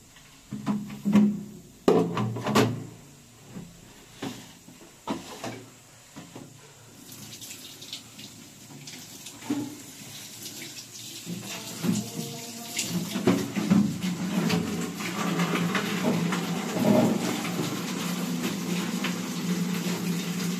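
A few separate knocks and clunks, then water running and splashing, building up over several seconds and then holding steady.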